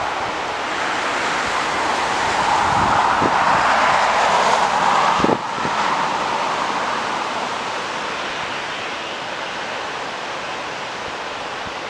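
Gusty wind rushing over the microphone, mixed with the engine noise of a taxiing Boeing 737 jet airliner. The rush swells for a few seconds, drops off sharply about five seconds in, then carries on steadily at a lower level.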